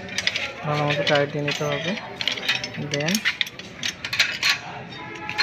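Small metal tools clicking and clinking against the throttle linkage and carburetor of a mini garden tiller's petrol engine as it is adjusted by hand. A man's voice is heard briefly about a second in and again near three seconds.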